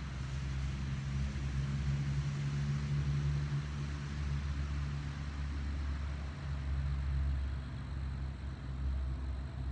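Low, steady engine rumble with a hum that is strongest for the first several seconds and eases near the end, over a faint hiss.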